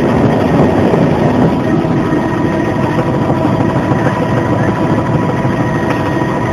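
Bell Jet Ranger helicopter's turbine engine and rotor running steadily in cruise flight, heard from inside the cabin, with a steady high whine over the constant rumble.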